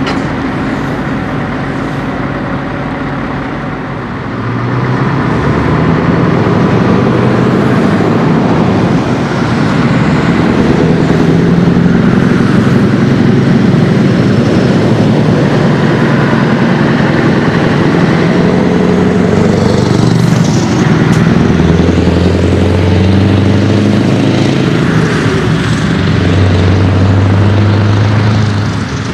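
Scania 164 480 V8 diesel truck idling, then pulling away hard under load about four seconds in, the engine note climbing and stepping down again with each of several gear changes. It stays loud until it drops away near the end.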